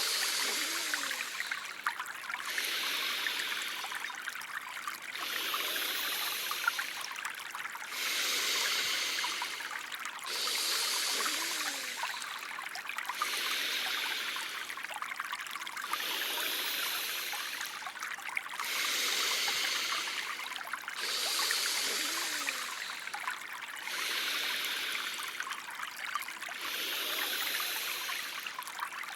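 Trickling, stream-like flowing water playing steadily, with a high hiss laid over it that swells and breaks off about every two and a half seconds.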